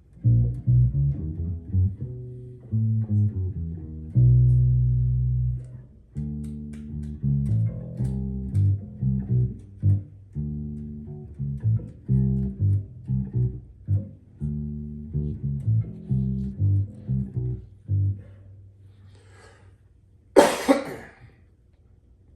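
Sterling SUB4 Stingray four-string electric bass played through an Ampeg BA-110 combo amp with both EQ knobs at their centre detent: a line of plucked bass notes, with one note held about two seconds early on, stopping about 18 seconds in. A cough near the end.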